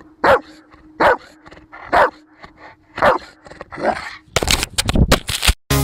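Rottweiler barking at close range: single deep barks, about one a second, five times. In the last second and a half this gives way to a burst of loud, rapid crackling noise, and music comes in right at the end.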